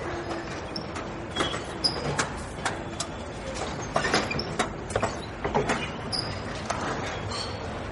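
London Underground station ambience: a steady background hum with a run of irregular sharp clicks and knocks through the middle few seconds.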